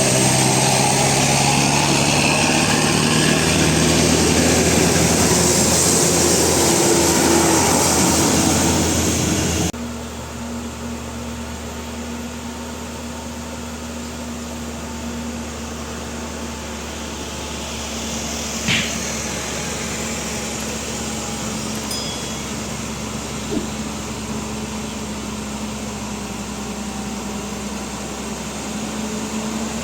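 Heavy vehicle's diesel engine labouring under load up a steep climb, loud and strained. About ten seconds in, the sound drops abruptly to a quieter, steady engine hum.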